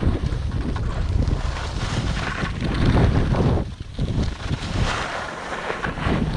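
Wind rushing over the microphone of a camera carried while skiing: a loud, steady low rumble and hiss that briefly drops away about halfway through.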